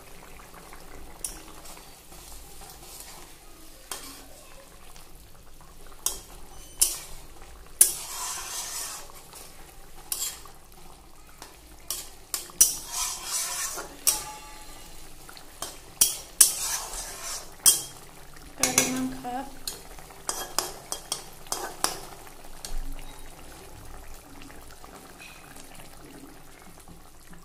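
Metal spatula scraping and clanking against a steel kadai as a fish curry is stirred, over a steady sizzle from the simmering curry. The clanks come in irregular clusters and thin out near the end.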